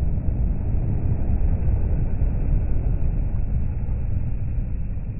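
DAF XF articulated lorry with a curtainsider trailer passing close by: a low, steady rumble of engine and road noise, loudest in the first few seconds and easing slightly as it goes past.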